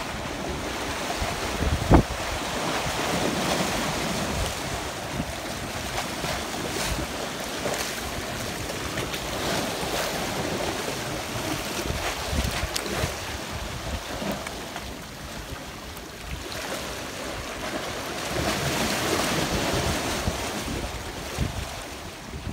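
Wind buffeting the microphone over waves sloshing against the jetty rocks, with one sharp knock about two seconds in.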